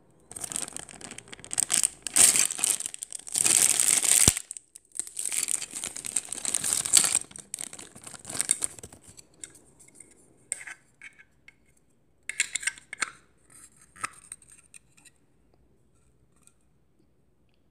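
Clear plastic bag of a Playmobil set crinkling and being torn open, in several loud bursts over roughly the first nine seconds. Then a few scattered shorter crinkles and light clicks as the small plastic parts are handled, fading out near the end.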